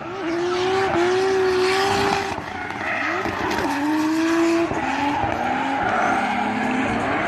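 Drift cars sliding with the engines revving hard and tyres squealing. The engine note holds, then drops and climbs back several times as the throttle and gears change.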